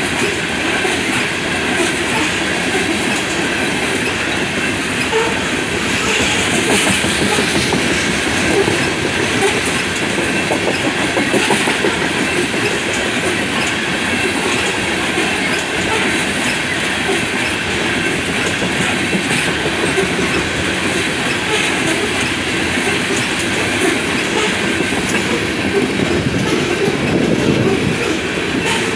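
Loaded coal hopper cars of a freight train rolling past at speed: loud, steady noise of steel wheels running on the rails, with no break.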